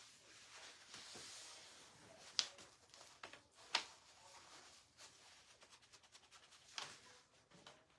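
Faint rummaging through craft supplies while looking for a paintbrush: soft rustling with a few short, sharp clicks and taps, three of them louder than the rest.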